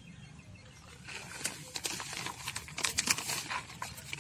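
Plastic fertilizer packet crinkling and rustling as Trichoderma viride powder is poured from it into a basin: quiet at first, then a run of short crackles from about a second in.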